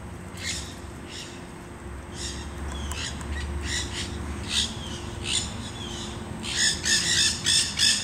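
Monk (Quaker) parakeets squawking: harsh, scratchy calls about a second apart, then a quick run of louder squawks near the end.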